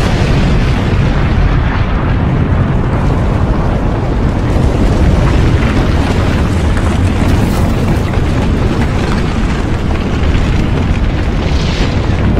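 Dramatized volcanic-eruption sound effects: a loud, continuous deep rumble with explosive booms, rising to a hissing surge near the end.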